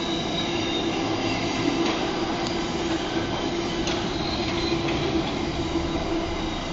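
Container freight wagons passing at speed, with wheels rolling on the rails, a steady whine over the rumble and a few sharp clicks. The sound eases off as the end of the train passes near the end.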